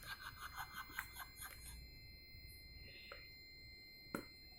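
Faint handling sounds of a phone's retail box and packaging: a quick run of small ticks and rustles in the first second and a half, then a soft click and, a little after four seconds, a sharper click.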